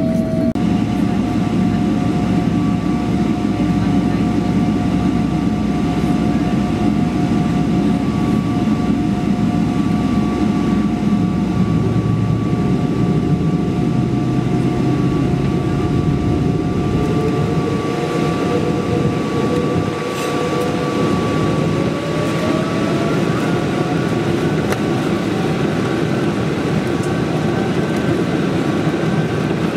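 A Boeing 777-300ER's GE90-115B turbofan engines heard inside the cabin over the wing: a steady whine over a low rumble as the jet taxis. From about halfway through, a tone rises in pitch as the engines spool up toward takeoff thrust.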